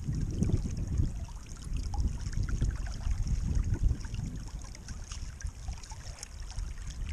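Creek water flowing steadily, a constant hiss with a low rumble underneath.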